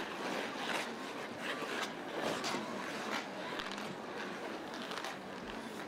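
Ice skate blades scraping and carving on the rink, making irregular rasping strokes over a steady background hiss.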